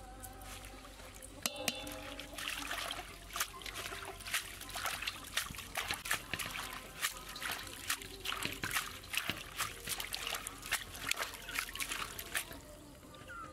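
Hands swishing and splashing leafy greens in a stainless steel bowl of water: a quick, uneven run of splashes that starts about a second and a half in and stops near the end.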